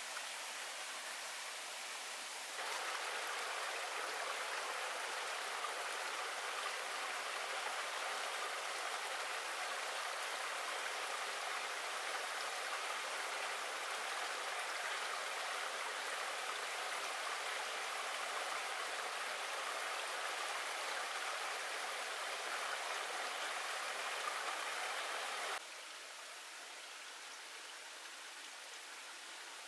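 Shallow rocky stream running: a steady rush of water that steps up sharply about two and a half seconds in and drops back suddenly about four seconds before the end.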